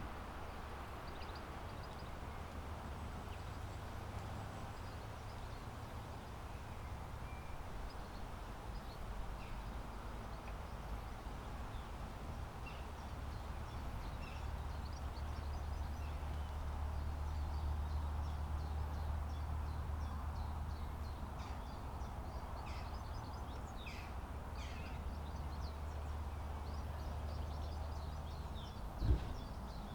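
Sea surf washing steadily over a low rumble, with scattered short bird calls that come more often in the later part. One sharp knock near the end.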